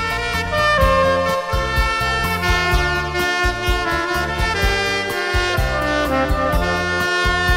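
Soprano saxophone playing a melody over a backing track with a steady drum beat.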